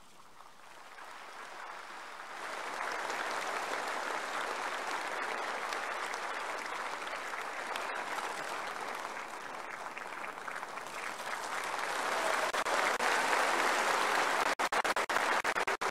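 Audience applauding: the clapping builds over the first couple of seconds, holds steady, and grows louder near the end.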